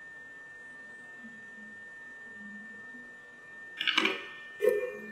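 A steady high pure tone with a faint low hum, then, near the end, a short clatter and a sharp click as the soldering iron and tweezers are lifted off the LED module.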